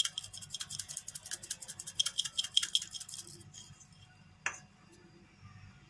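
Spice shaker shaken quickly over a pan, a fast rattle of small clicks, sprinkling garam masala. It stops about three and a half seconds in, and a single click follows about a second later.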